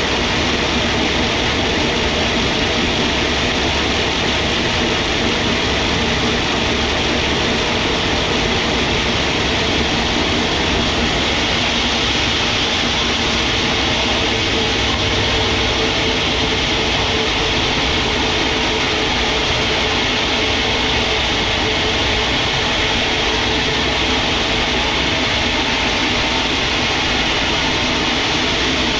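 Sawmill machinery running steadily, a constant loud mechanical noise with a low hum that does not let up.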